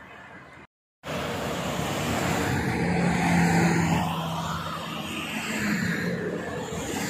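Motorway traffic passing close by: cars and trucks with tyre noise and engine hum, loudest about three seconds in as a truck goes past. The sound cuts out completely for a moment just before the first second.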